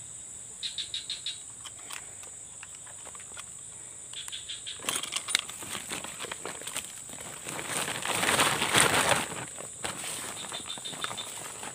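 Insects drone steadily, with short chirping trills early on. From about five seconds in, a crackling rustle of a plastic sack being handled takes over, loudest around eight to nine seconds and easing off near the end.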